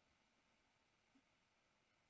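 Near silence: faint room tone, with one tiny blip about a second in.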